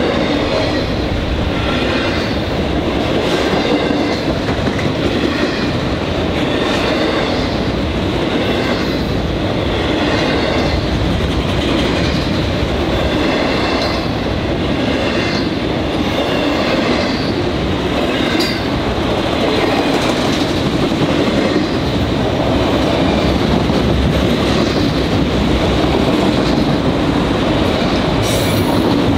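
Freight train of autorack cars rolling past at close range: a steady loud rumble of steel wheels on rail, with regular clickety-clack as the wheels pass over rail joints.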